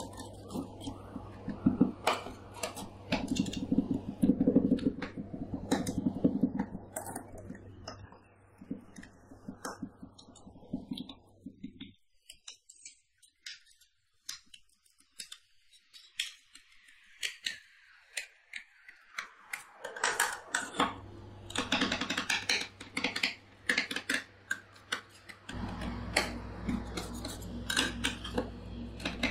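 Two metal spatulas chopping and scraping a freezing ice-cream mixture on a cold steel ice-cream-roll pan: quick, irregular clicks and taps of the blades on the plate, with scraping in between. Under them runs a steady low hum that drops out for several seconds in the middle.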